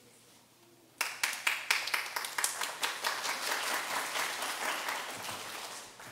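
Congregation applauding after the pre-service music: hand claps start suddenly about a second in, thicken into steady applause, and die away near the end.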